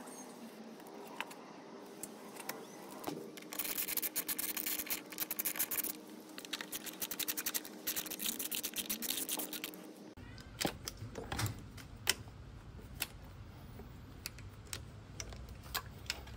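Hand-tool work on a motorcycle being dismantled: a long run of fast, scratchy clicking as a screwdriver works a screw, followed by scattered small clicks and taps as parts and wiring are handled.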